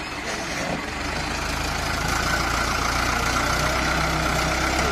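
Mahindra Arjun 555 DI tractor diesel engine working under load in deep mud, getting louder about a second in. A steady whine sits above it from about two seconds in.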